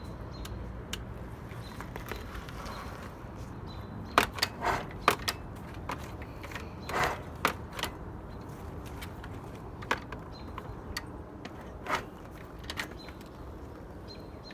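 Kickstart mechanism of a 1983 Yamaha PW80 two-stroke dirt bike being kicked and worked: a series of metal clanks and knocks, a cluster about four seconds in and more around seven seconds, while the engine does not fire. The kickstarter is not springing back up on its own.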